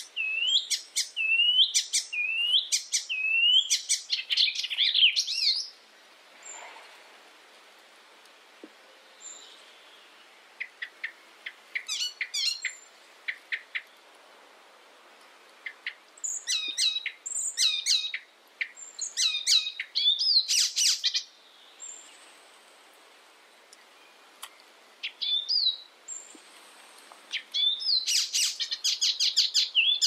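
Icterine warbler singing: fast, varied phrases of quickly repeated high notes and chattering trills. They come in four bursts a few seconds long, with short pauses between them.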